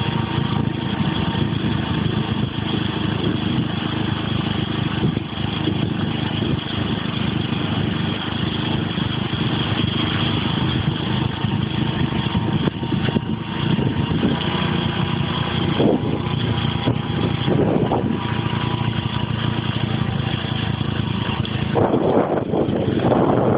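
Engine of a moving road vehicle running steadily, with road and wind noise, heard from on board. Wind buffeting on the microphone grows near the end.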